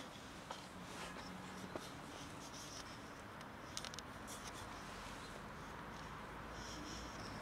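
Quiet, steady background noise with a few soft clicks.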